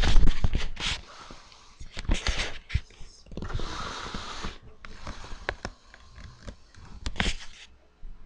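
Handling noise as a webcam is moved about: a run of knocks and clicks, loudest at the start, with a stretch of rubbing or rustling about halfway through.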